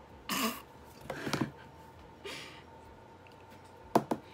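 Handling of a makeup highlighter palette and brush: a few short rustling noises, then two sharp clicks in quick succession near the end.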